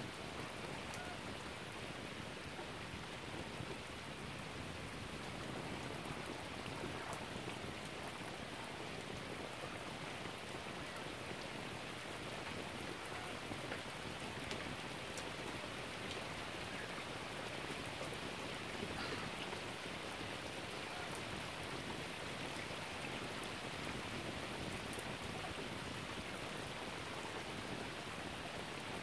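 Steady rain falling: an even hiss with scattered small drop ticks, unchanging throughout.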